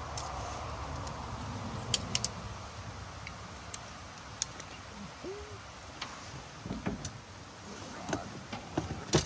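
Scattered sharp clicks and knocks of gear being handled near a phone lying on a truck bed, the loudest a double click near the end. A low rumble fades over the first few seconds, and a single short hooting note sounds a little after five seconds in.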